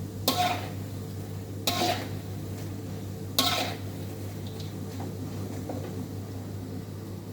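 Metal utensil clanking against a cooking pan three times, about one and a half seconds apart, each clank ringing briefly. A steady low hum runs underneath.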